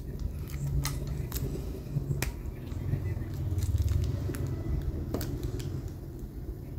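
Handling noise: a dozen or so light, sharp clicks and taps at irregular moments over a low steady rumble.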